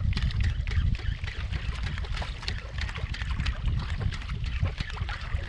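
Wind rumbling on the microphone over water lapping against a kayak hull, with many small irregular clicks and splashes.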